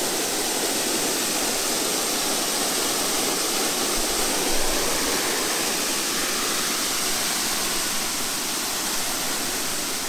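Steady, even rush of falling water from a small waterfall splashing onto rock.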